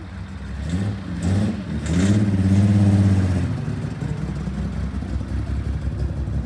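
Classic Datsun Z sports car driving by: the engine revs up in a couple of short blips, then gives a longer, louder rev about two seconds in that rises and falls, before settling into steady lower running.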